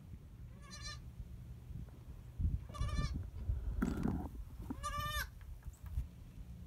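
Savanna goat bleating: three short, high, wavering bleats about two seconds apart.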